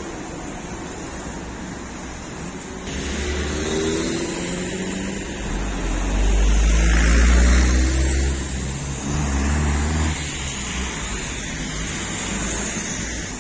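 Street traffic: a motor vehicle's engine rumbles past close by, growing to its loudest about halfway through and then fading into the steady hum of the road.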